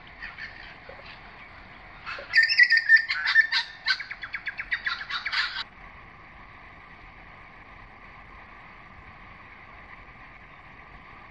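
A bird calling loudly: a fast run of high chirping notes starting about two seconds in and cutting off abruptly about three seconds later, with a few fainter calls just before, over a faint steady bush background.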